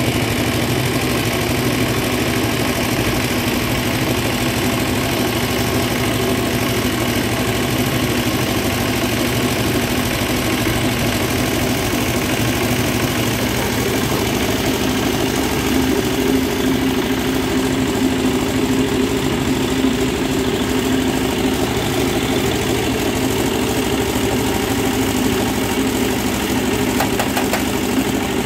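A steady machine hum, like an engine running at idle, with a hiss over it; it runs evenly without stopping or changing speed.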